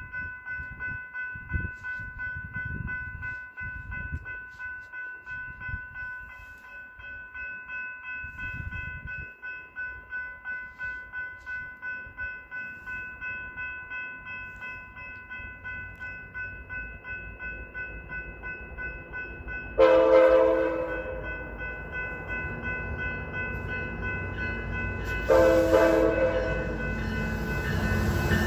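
Grade-crossing bells ringing steadily, then the horn of an approaching Metra F59PHI locomotive sounds two blasts, about two-thirds of the way in and again near the end, as the train's rumble builds.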